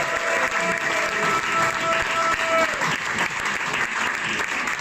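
Audience applauding, a dense steady patter of many hands clapping.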